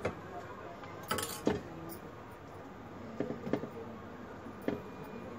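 A metal spoon and a stainless-steel bowl clinking and knocking together a few times, the loudest strikes a little over a second in, one of them leaving a short ring, then softer clinks later on.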